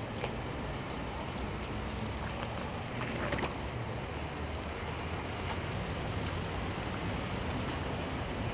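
Steady outdoor city background noise with a low traffic rumble, and a faint brief rustle a little over three seconds in.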